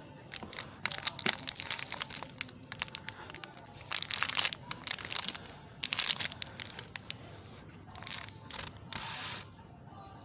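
A packet of digestive biscuits being crushed under a car tyre: the plastic wrapper crinkles and the biscuits inside break in a run of sharp cracks and crunches, loudest about four and six seconds in and thinning out near the end.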